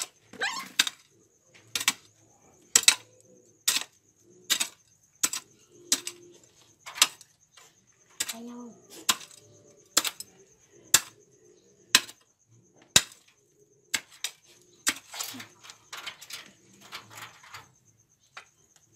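Metal hoe chopping into dirt, a sharp strike about once a second as a hole is dug out.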